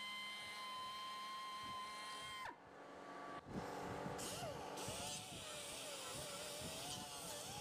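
Pneumatic belt file sander running with a steady high whine. It stops abruptly about two and a half seconds in. After a brief pause, a right-angle air grinder with a small sanding disc grinds cured fiberglass matting and resin, its whine wavering up and down in pitch.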